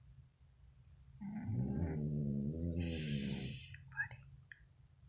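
A sleeping cat snoring: one long, rasping snore that starts about a second in and lasts over two seconds, followed by a few faint clicks.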